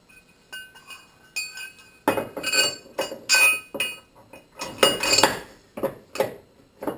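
Metal mounting bracket, bolts and washers clinking and clattering as they are handled and set against a boat's jack plate: a run of sharp metallic taps with short ringing, sparse at first and busiest in the middle.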